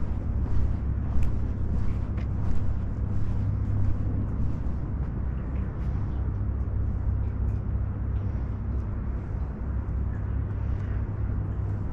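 Outdoor background noise heard while walking: a steady low rumble with a general hiss and a few faint clicks.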